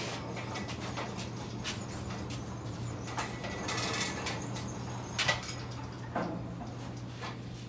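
Folding steel engine hoist being handled and wheeled across a concrete floor: scattered short clanks and rattles from its frame, casters and hanging chain, with a brief scraping rustle about four seconds in, over a steady low hum.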